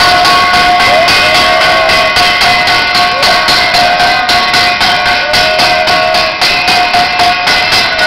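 Temple bells and cymbals clanging loudly in a fast, even rhythm of several strokes a second over a sustained ringing tone, as at an evening aarti.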